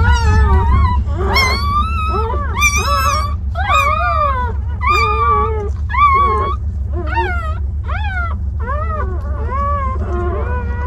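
Newborn puppies crying: a string of high-pitched, rising-and-falling whines, roughly one a second, several voices overlapping at times, over a steady low hum.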